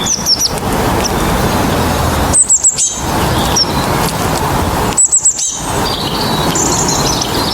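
Birds chirping in several quick runs of short, high, falling notes over a loud, steady rush of outdoor noise.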